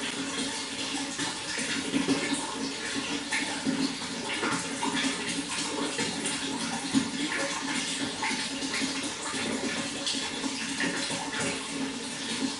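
Running water splashing and trickling steadily, with many small splashes throughout.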